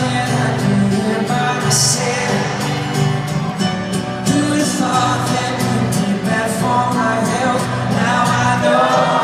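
Live pop-rock band playing with singing: the opening of a song, with sustained instrument notes and a steady drum beat.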